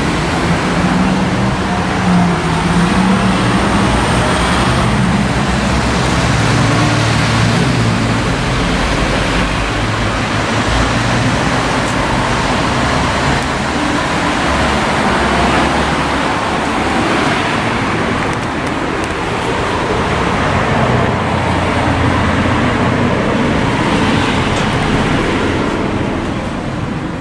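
Street traffic noise: a steady din of passing vehicles with a shifting low engine hum, easing slightly near the end.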